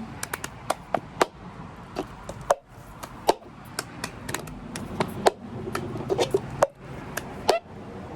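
A series of sharp taps and knocks on a hard surface, about a dozen at uneven spacing.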